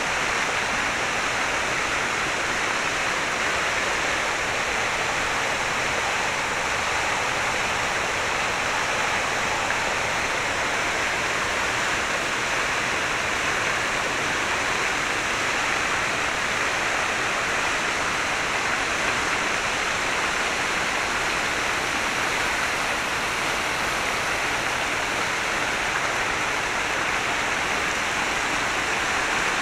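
A steady, even rushing noise that holds at the same level throughout, without any break, rhythm or change.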